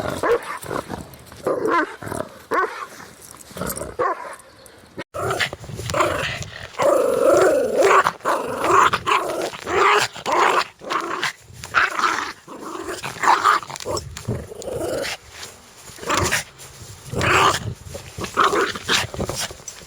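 Angry dogs barking and snarling: short, irregular barks with a long wavering growl-snarl about a third of the way in. The recording changes abruptly about five seconds in.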